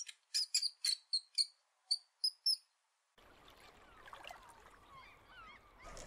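A mouse squeaking: about ten short, high squeaks in quick succession that stop after about three seconds. Then a faint even background with thin, wavering chirps.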